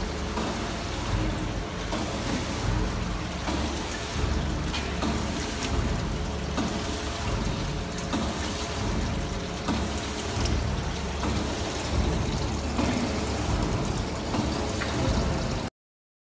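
Henneken HPI brine injector running: steady machine noise with a regular pulse about every second and a half, and brine pouring and trickling. The sound cuts off abruptly near the end.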